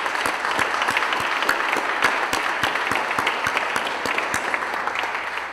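An audience applauding, a dense clatter of many hands clapping that starts to die away near the end.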